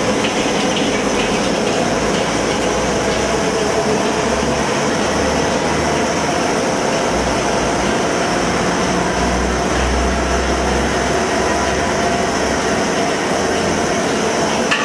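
Commercial stir-type popcorn kettle running: a steady mechanical rumble and hiss from its burner and stirring-arm motor while the oil heats.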